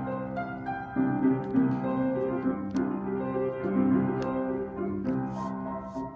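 Piano playing chords and a melody line, with no voices, and a few short sharp ticks over it.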